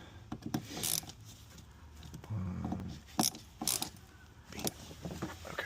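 Hand tools clicking and clinking against metal parts while the catch can's bracket fasteners are tightened: a handful of sharp, separate clicks with some ratchet-like ticking.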